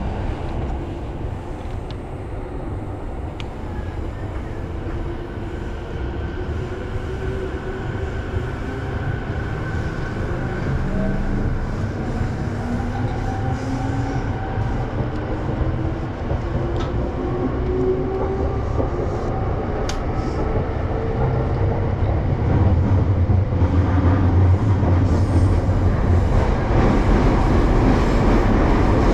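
Sōbu Line local electric commuter train accelerating away from a station, heard from inside the car. A motor whine rises steadily in pitch through the first half over a rumble of wheels on the rails. The running noise grows louder in the last several seconds.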